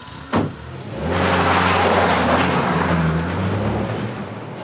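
A car door shuts with a thud, then an SUV's engine runs loud as the vehicle drives off, its sound fading near the end.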